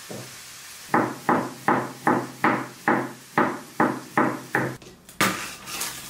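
Kitchen knife slicing a cucumber on a wooden cutting board: about ten even chops, a little under three a second, each a knock of the blade through to the board. Near the end, a crinkly rustle as the sealed lid is peeled off a plastic tub.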